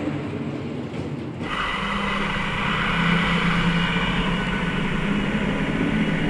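Steady rumbling noise with a low hum. The sound shifts and fills out about a second and a half in.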